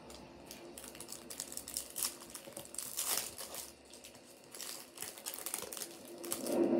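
Foil wrapper of a Topps Chrome baseball card pack crinkling in irregular bursts as it is torn open and handled by hand. A short low hum comes near the end.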